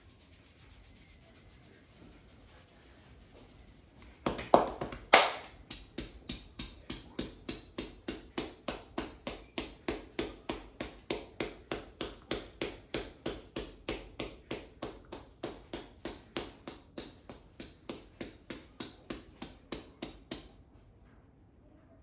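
Barber's hands, clasped together, tapping rhythmically on a man's scalp in a traditional Indian head massage. Two loud strikes about four seconds in, then a steady run of about three taps a second that stops shortly before the end.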